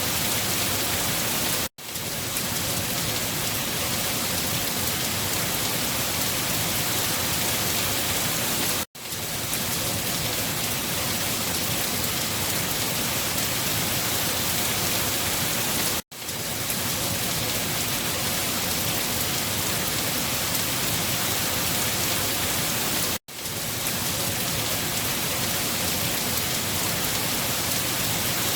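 Steady, heavy rain, an even hiss of drops. It cuts out to silence for a split second four times, about every seven seconds, and swells straight back each time.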